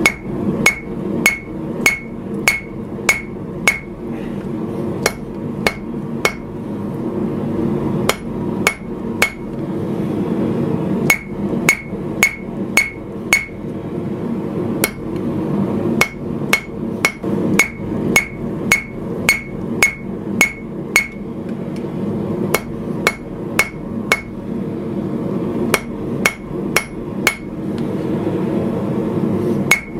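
Hand hammer forging a red-hot steel knife guard on the anvil horn. About two blows a second come in runs of several strikes with short pauses, each leaving a brief high ring, over a steady low rumble.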